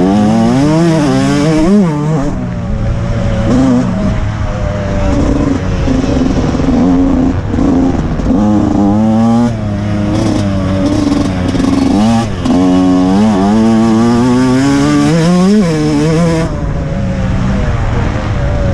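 TM 125 MX two-stroke motocross bike engine revving hard, its pitch climbing and dropping again and again as the rider opens the throttle, shifts and rolls off. A steady rush of wind over the helmet-mounted microphone runs underneath.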